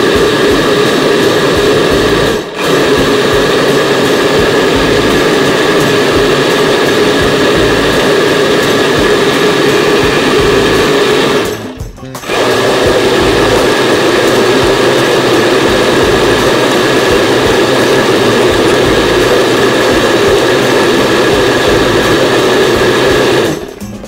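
Electric blender motor running at full speed. It cuts out briefly about two and a half seconds in and again near the middle, then stops just before the end.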